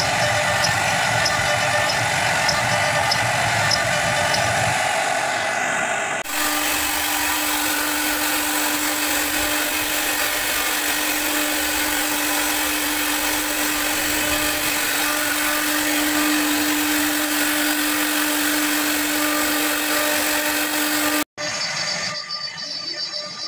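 CNC router spindle running and cutting wood: a loud, steady machine noise. About six seconds in the sound changes abruptly to a steady whine over the cutting noise, and near the end it cuts out briefly and gives way to a quieter sound.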